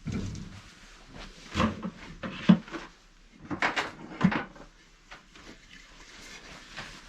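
Irregular knocks and clunks of hard objects being handled, a few at a time, the sharpest about two and a half seconds in.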